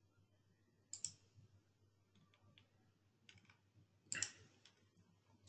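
Near silence, broken by a few faint clicks: one about a second in, a couple of small ones around three seconds, and a slightly fuller one just after four seconds.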